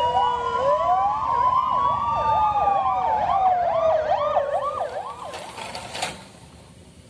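Several fire engine sirens sounding together, a slow wail rising and falling over a fast yelp that rises and falls about three or four times a second. The sirens fade about five seconds in and cut off with a click near six seconds.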